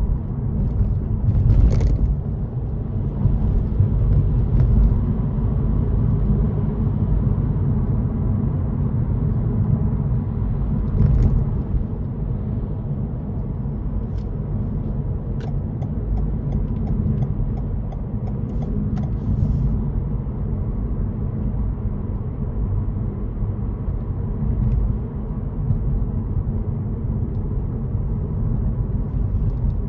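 Car driving along a road: a steady low rumble of engine and tyre noise, with a few sharp ticks and a short run of faint clicks around the middle.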